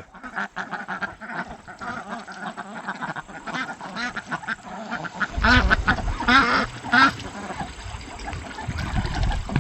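Ducks quacking repeatedly, with a run of louder quacks about five to seven seconds in. A low rumble sits beneath from about five seconds in.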